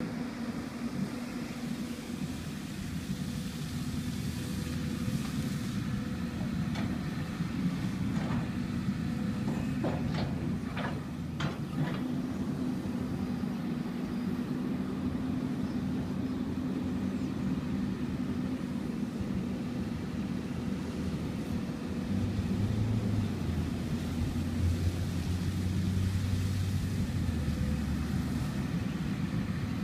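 Hyundai 200LC-9 crawler excavator's diesel engine running steadily, with a few sharp knocks about ten seconds in. From about two-thirds of the way through the engine note grows louder and deeper as it takes load, then eases back near the end.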